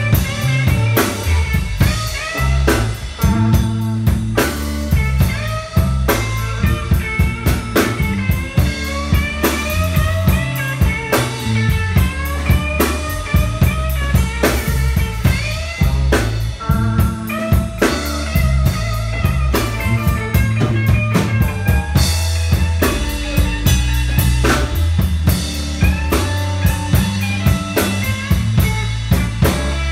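Live blues band playing an instrumental passage: electric guitar lead with many bent notes over electric bass and a Pearl drum kit keeping a steady beat.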